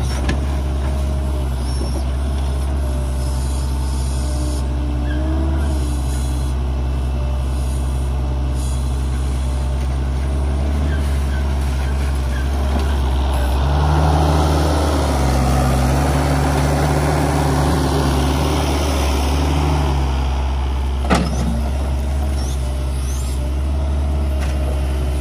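Pel-Job mini excavator's diesel engine running steadily while it digs mud out of a pond edge. For several seconds in the middle the engine note rises and the sound grows louder and fuller. A single sharp knock comes late on.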